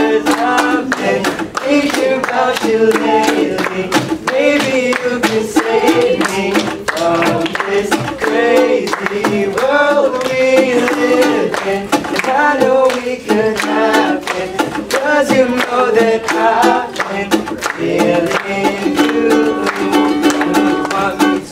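Live music: a singer's voice over a steadily strummed string instrument.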